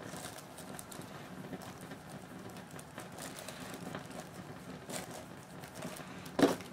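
Wool dauber dabbing and rubbing leather dye onto a carved leather arm brace: soft, irregular patting and scuffing, with one louder knock near the end.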